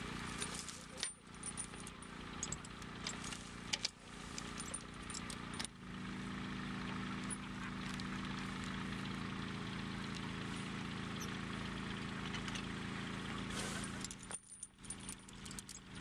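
Outdoor field ambience: a steady low engine hum, from a tractor running off in the field, becomes steadier about six seconds in, under faint background voices. There are a few sharp clicks and clinks in the first four seconds.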